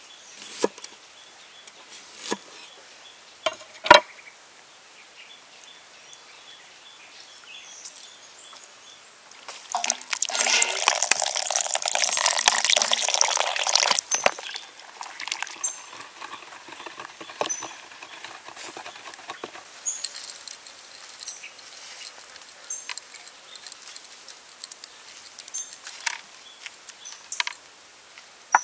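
A knife cuts through limes on a wooden board with a few sharp taps. Then, for about four seconds, liquid pours and splashes into an earthenware mortar of pounded chili sauce. Faint scattered clicks follow.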